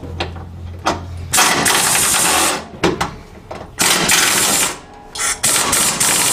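Pneumatic air ratchet running in short bursts of about a second each, three times, as it spins off the 10 mm nuts on the radiator support cross member.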